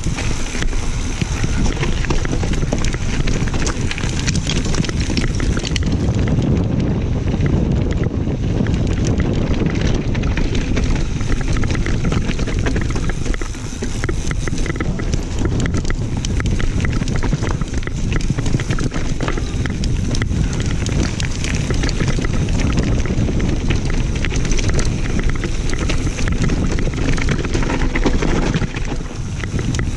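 Mountain bike descending a rocky, gravelly trail at speed: tyres crunching over loose stones, with constant rattling and knocking from the bike as it takes the hits, and wind buffeting the camera microphone.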